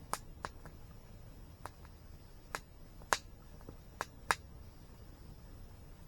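Wood campfire crackling: sharp, irregular pops and snaps, about eight in a few seconds, the loudest past the middle. Beneath them runs a steady low rumble of falling water.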